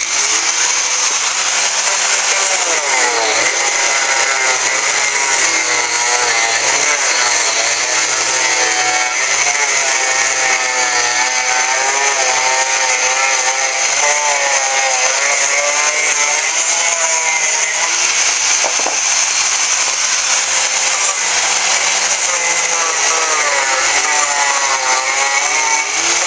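Cheap Harbor Freight angle grinder starting suddenly and cutting into a Kärcher pressure washer's pump housing. Its whine rises and falls as the disc is pressed into the work.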